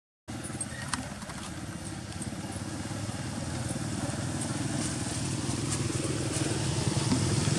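Small motorbike engine running steadily, growing louder as it draws closer.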